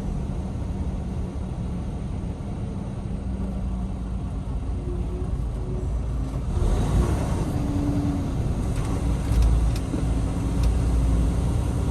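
Semi truck's diesel engine running as the tractor-trailer rolls slowly, heard from inside the cab as a steady low rumble. The rumble and a broad hiss grow louder from about six and a half seconds in, with a few faint ticks near the end.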